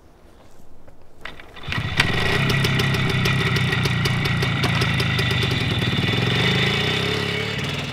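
Small motorcycle engine catching about two seconds in and running with a fast, even beat as the rider pulls away, easing slightly near the end.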